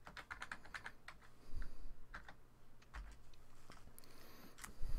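Typing on a computer keyboard: a quick run of keystrokes in the first second, then a few separate key presses spaced out over the next few seconds.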